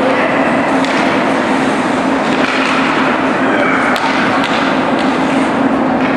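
Ice hockey play in an echoing indoor rink: skates scraping the ice under a steady low hum, with a few sharp clacks of sticks on the puck, one about a second in and two around four seconds in.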